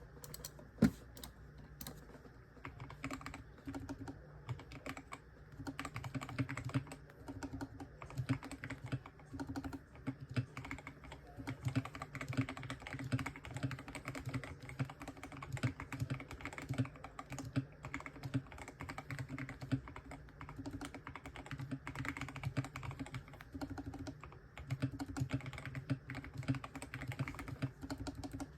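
Continuous fast typing on a GMMK 2 compact mechanical keyboard with lubed Akko Jelly Black linear switches, giving a deep, muted 'thocc' on each keystroke. There is one sharper, louder clack about a second in.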